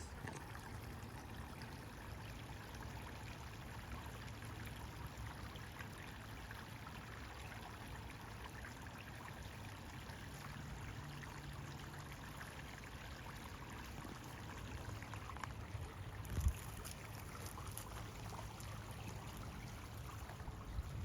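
Steady, faint rush of running water, with a single knock about sixteen seconds in.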